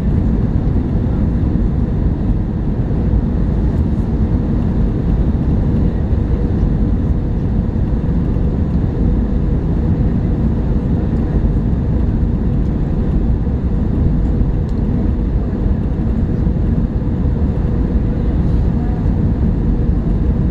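Steady airliner cabin noise inside an Airbus A321 in flight: a low, even rumble of engines and airflow with a faint steady hum.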